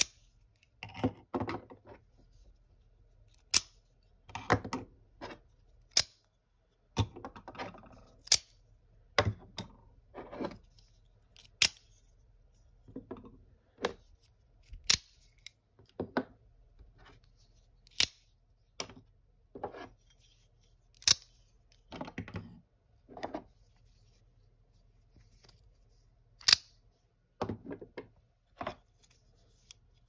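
Out-the-front (OTF) automatic knives fired one after another: sharp metallic snaps of the blades shooting out of their handles, about one every second or two, with softer clatter of the knives being handled and laid on the wooden desk between them.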